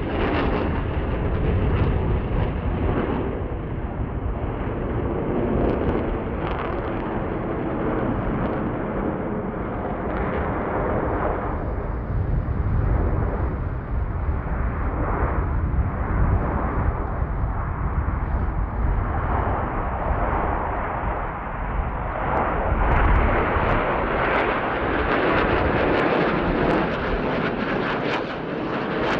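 Jet engine noise from a formation of T-50B trainer jets flying over. A deep, continuous rumble that swells and eases as they pass.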